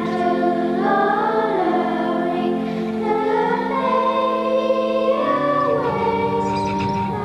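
Children's choir singing a carol in slow, long held notes.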